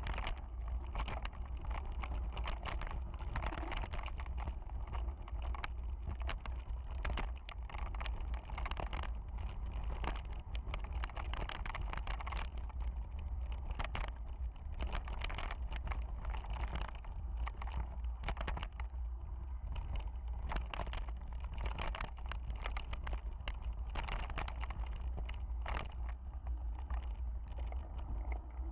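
Riding a bicycle in the rain: steady wind rumble on the microphone with a dense, irregular run of sharp ticks and clicks, as of raindrops striking the microphone or the bike rattling.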